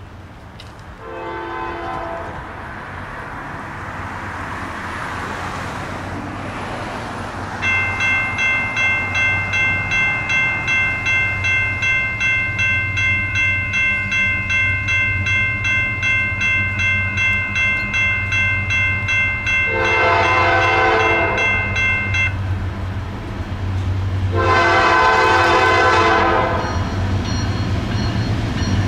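A diesel freight locomotive approaching. Its multi-chime air horn sounds a short blast, then long blasts about 20 and 24 seconds in, with another starting near the end. A bell rings steadily about twice a second from roughly 8 to 22 seconds in, over the low hum of the engine growing louder.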